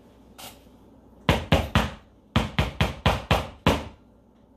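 A glass measuring cup with flour in it knocked repeatedly to loosen the flour: three quick knocks, a short pause, then about six more, roughly four a second.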